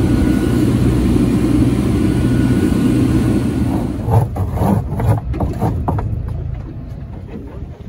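A boat's engine running steadily under way, a low rumble mixed with wind and water noise. About halfway through it drops away abruptly, leaving irregular knocks and rustles close to the microphone.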